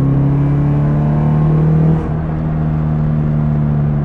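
Nissan 240SX's KA24 four-cylinder engine pulling under acceleration, heard from inside the cabin, rising slowly in pitch. About two seconds in, the sound dips briefly for an upshift, then the engine pulls again at a lower pitch.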